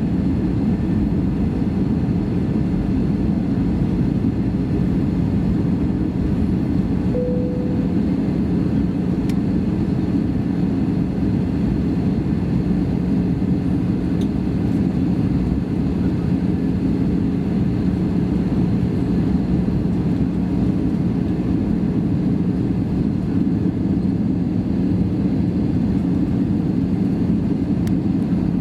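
Steady cabin noise inside an Airbus A320: an unchanging hum of engines and airflow with a constant low drone. A brief tone sounds about seven seconds in.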